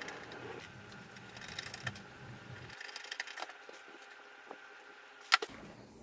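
Screwdriver turning a screw that holds a case fan to a PC case's steel back panel: faint scattered clicks and scrapes, with one sharp click about five seconds in.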